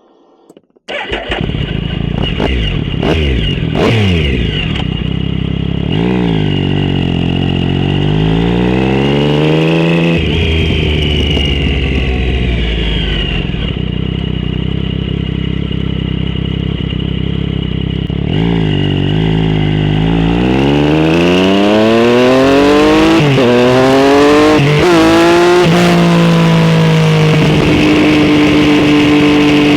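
Motorcycle exhaust under way, coming in suddenly about a second in. Revs climb and drop back through several gear changes, the quickest in close succession around the middle of the second half, then the engine holds a steady pitch near the end. The mic clipped to the frame under the seat picks up vibration, which makes the sound a bit rattley.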